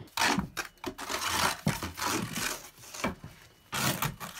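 Snow shovel digging into deep fresh snow and tossing it out of a boat: a series of irregular crunching scoops and scrapes.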